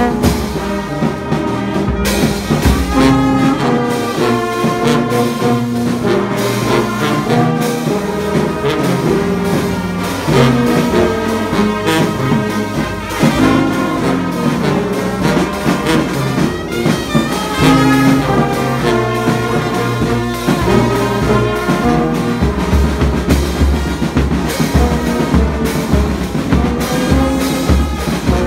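Brass band playing, with a low brass horn close by carrying the bass line and cymbals keeping a steady beat. The bass beat grows heavier about three-quarters of the way through.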